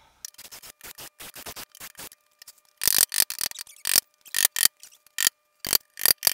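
Rapid, irregular mechanical clicking, like a ratchet, in quick runs with short gaps, much louder from about halfway through.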